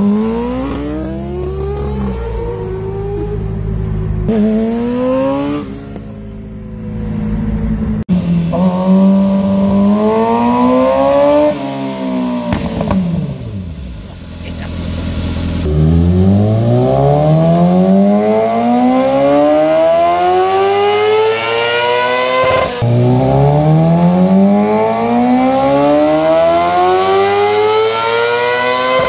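Kawasaki ZX-6R 636's inline-four engine revving hard in a series of rising sweeps. First come short revs, then on a chassis dyno come long wide-open-throttle pulls that climb steadily in pitch, with a brief break about three quarters of the way through before it climbs again.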